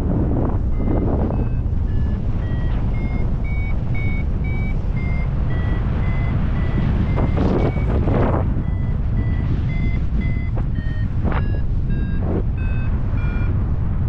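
Paragliding variometer beeping in short tones about twice a second, the pitch stepping up and down, the beeping that signals the glider is climbing in rising air. Heavy wind noise on the microphone runs under it, with louder gusts about halfway through and again near the end.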